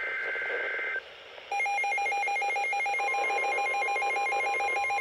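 Emergency Alert System tones. The tail of a SAME header's digital data burst, a shrill two-pitch screech, cuts off about a second in. After a short pause the alert's attention signal starts, a loud, rapidly pulsing electronic tone, and it carries on with a steadier tone joining it partway through.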